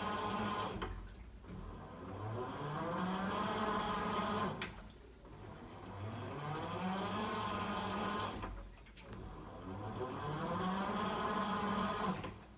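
Washing machine's wash motor running in repeated strokes, each a rising hum that levels off and then stops briefly before the next stroke, about every four seconds. This is the back-and-forth agitation of the wash cycle.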